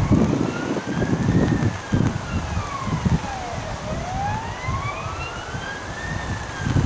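A siren wailing, its pitch rising and falling slowly, about one rise and fall every four to five seconds. Wind buffets the microphone in gusts underneath.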